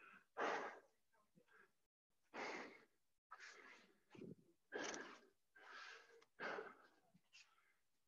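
A person breathing hard and fast while doing burpees, about seven short, noisy breaths spaced irregularly: out of breath from the exercise.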